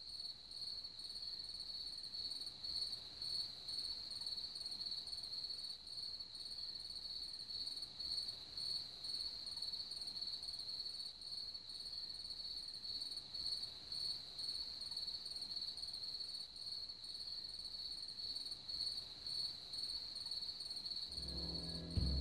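Crickets trilling steadily in a single high, slightly pulsing tone. A low rumble comes in near the end.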